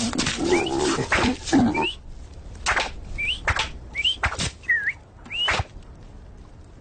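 Cartoon sound effects: rough lion-like growls and grunts for about two seconds, then four short rising whistles, each with a sharp thud, as darts whizz into a dartboard.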